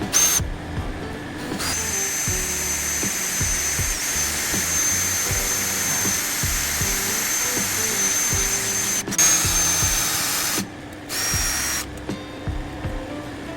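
Power tool running in stretches with a high, steady whine: a brief burst at the start, a long run of several seconds, then a shorter run near the end. Background music plays underneath.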